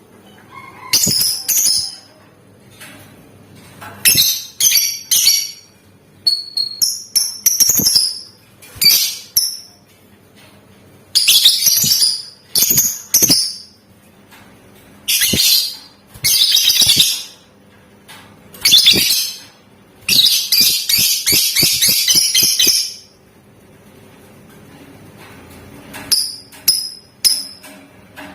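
Lovebird calling in shrill, high-pitched bursts: short chirping and chattering phrases every second or two, then a long rapid chattering trill lasting about three seconds, the drawn-out 'ngekek' that lovebird keepers prize.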